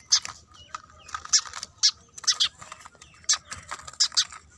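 Sparrows giving short, sharp chirps, about a dozen of them, some in quick pairs. They are bait birds, caged and handled in a wire bal-chatri trap.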